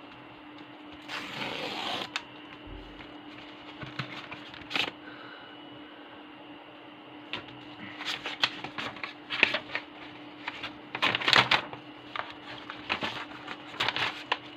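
Paper mail packaging rustling and crinkling in bursts as it is opened and handled, with a few sharp clicks. A faint steady hum lies underneath.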